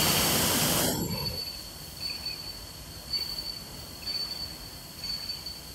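Laminating machine running: a loud rush of noise about a second long, then a steady high whine over a low hum that swells about once a second as the rollers turn.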